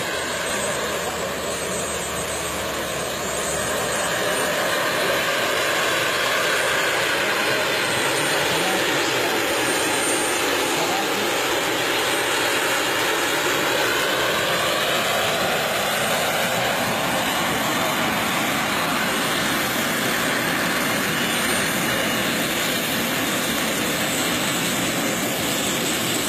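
Radio-controlled model helicopter in flight: a steady rushing engine-and-rotor noise whose tone slowly sweeps down and up as the model moves about. It grows a little louder about four seconds in.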